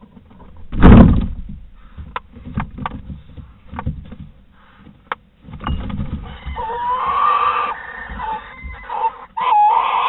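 A heavy thump about a second in, then scattered taps and scrapes of barn owls' feet on the box's wooden floor and debris. From about six seconds a barn owl gives a rasping hiss-screech of alarm, with a wavering note near the end, reacting to the threat of the tawny owl that chased it in.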